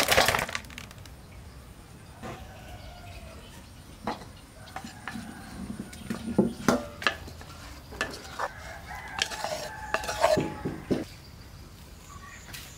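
Kitchen utensils knocking and clinking against pots and dishes in a series of short, separate knocks, with a rooster crowing in the background.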